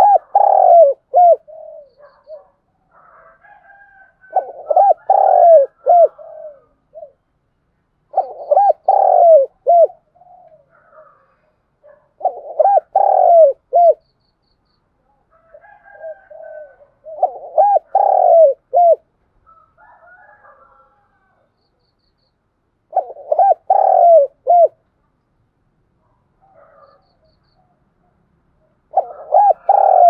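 Spotted dove cooing as a caged decoy bird, in seven short phrases of a few quick coos each, repeating about every four to six seconds. Fainter bird calls sound between the phrases.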